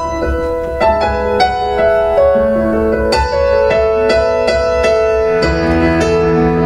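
Piano playing the slow introduction of a country ballad: struck notes that ring on, changing every half second or so over a held low bass.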